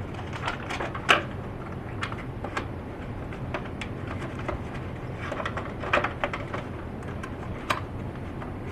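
Plastic parts of a Big Mouth Billy Bass novelty fish being handled and worked apart: irregular clicks and knocks, the loudest about a second in and a cluster of them near six seconds, over a steady low hum.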